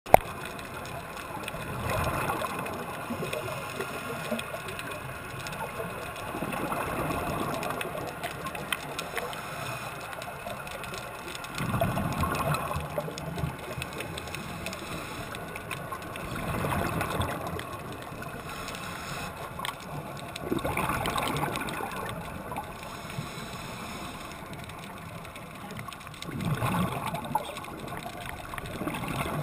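Scuba diver breathing through a regulator underwater, with a gush of exhaled bubbles from the regulator exhaust about every four to five seconds and quieter bubbling between. The sound is muffled through the waterproof camera housing.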